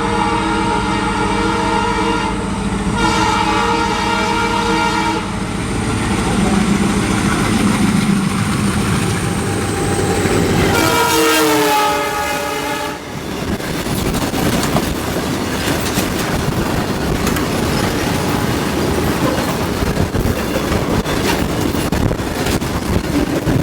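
Horns of twin ALCO diesel locomotives hauling a freight train at speed. They give two long blasts in the first five seconds, then one more blast about eleven seconds in that drops in pitch as the locomotives pass. For the rest, the freight wagons rumble and clatter past over the rail joints.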